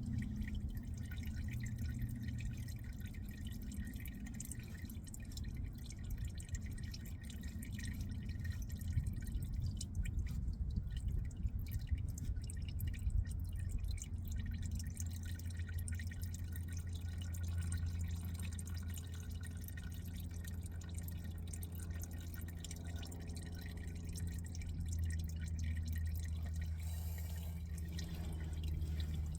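Engine oil draining from the oil pan into a catch pan, dripping steadily, over a steady low hum.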